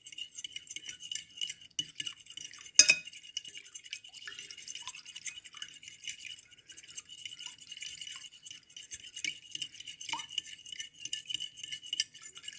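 Fork beating eggs and milk in a glass bowl: fast, continuous clicking and tapping of the fork against the glass, with one sharper knock about three seconds in.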